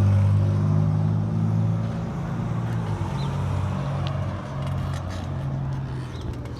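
A motor vehicle's engine running with a steady low hum that gradually fades.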